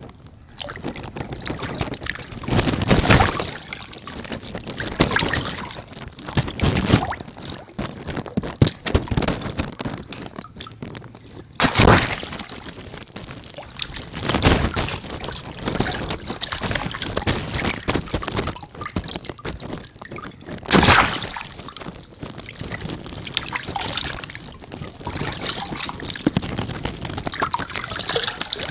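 Water balloons bursting one after another with sharp pops, each followed by water pouring and splashing; the sharpest pops come about twelve and twenty-one seconds in.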